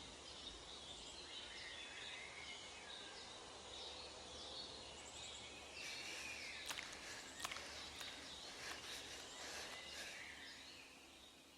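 Faint outdoor ambience with birds chirping over a soft hiss, with a few sharp clicks a little past halfway, fading out near the end.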